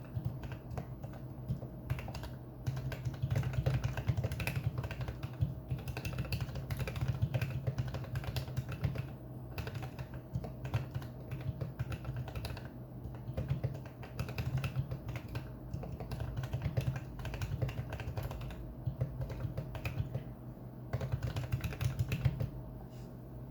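Typing on a GK64 mechanical keyboard with lubed and filmed Outemu Ice Clear V2 linear switches in a foam-filled wooden case. The keystrokes come in quick runs with brief pauses.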